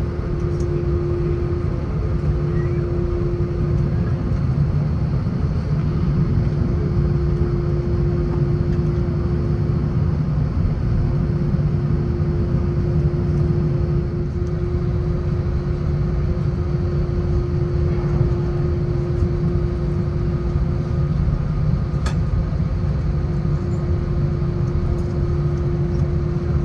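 Steady cabin rumble of an Airbus A330-900neo taxiing after landing, heard from inside the cabin. There is a low drone and a steady held hum from the idling Rolls-Royce Trent 7000 engines and the cabin air.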